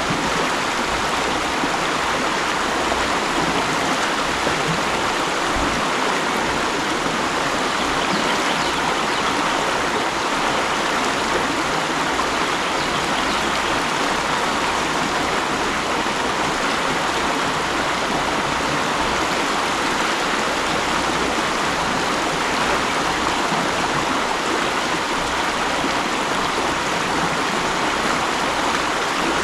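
Mountain stream rushing steadily over rocks, an even, unbroken flow of water.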